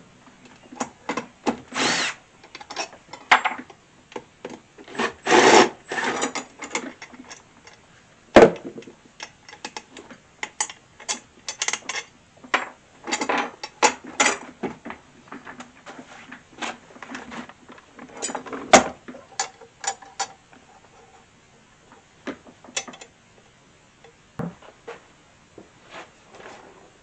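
Cordless Milwaukee drill-driver backing screws out of a rolling mechanic's stool in short bursts, among clunks, knocks and scraping as the stool and its seat pad are handled. The sounds thin out near the end.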